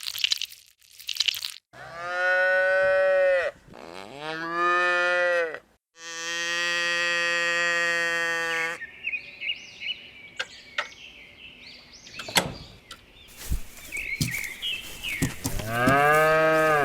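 Cattle mooing: four long, pitched calls, the third held steady for over two seconds. Between the third and fourth calls come short high chirps and sharp clicks.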